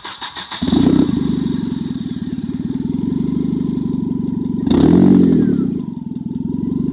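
2001 Nissan Sentra's DOHC four-cylinder engine cranking on the starter and catching within about a second, then running steadily. It is briefly revved about five seconds in and drops back to idle. This is the first start after its rod bearing was replaced to cure a knock.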